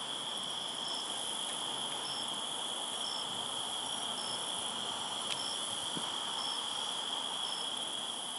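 Crickets chirping in a continuous chorus, a steady high trill, with short higher chirps recurring about once a second.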